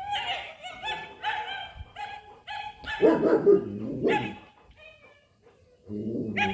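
German Shepherd puppy yipping: a run of short high yips, about three a second, then louder, deeper barks about three and four seconds in, a pause, and more yipping near the end.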